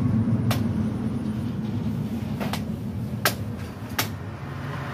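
A meat cleaver chopping a whole duck on a thick wooden chopping block: four sharp chops, spaced unevenly, the last two about a second apart. Under them, a loud low rumble of a passing vehicle slowly fades.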